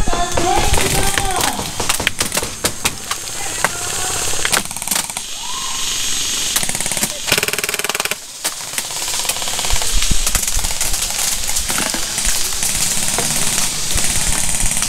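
Airsoft rifles firing in single shots and short bursts, a sharp clattering of shots throughout, with one fast rapid-fire burst a little past halfway. A voice shouts in the first second or so.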